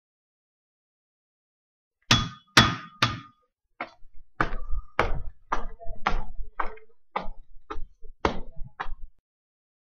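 A run of about thirteen sharp, hard knocks about half a second apart, starting after a couple of seconds of silence. The first three ring briefly.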